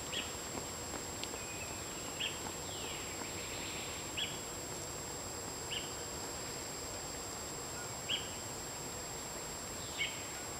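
Outdoor riverside ambience: a small bird gives short high chirps about every two seconds, with a couple of falling sweeps, over a steady hiss and a thin, high, steady whine.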